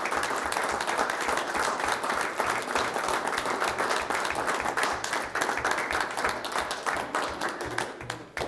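Audience applauding: a sustained round of dense hand clapping that thins out and dies away near the end.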